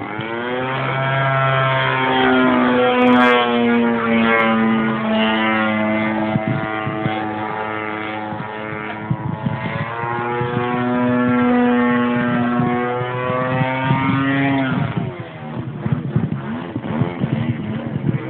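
DLA 64cc twin-cylinder boxer petrol engine of a giant-scale Yak-54 RC aerobatic plane in flight, its pitch gliding up and down as it throttles and manoeuvres. It goes quieter and rougher about fifteen seconds in.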